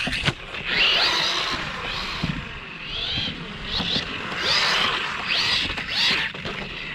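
Brushless motor of a 1/16-scale RC truggy whining in several short bursts of throttle, each rising in pitch, over a steady rushing noise.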